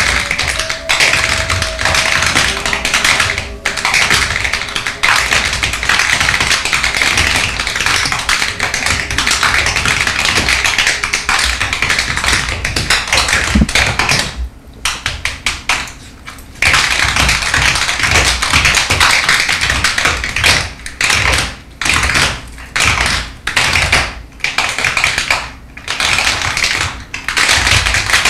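A group of tap dancers' shoes striking a stage floor in fast, dense rhythms. About halfway through the tapping nearly stops for a couple of seconds, then comes back in short phrases separated by brief pauses.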